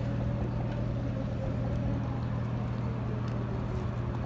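Boat engine running steadily at low revs, a constant low hum.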